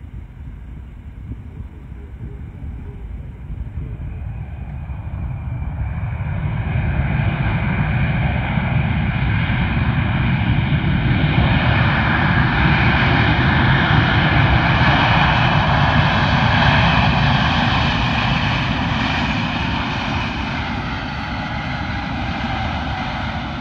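Boeing 737-800 jet airliner's CFM56-7B turbofan engines running as it rolls out on the runway after landing: a steady jet roar with a high whine in it, swelling over the first several seconds, loudest in the middle, then easing somewhat near the end.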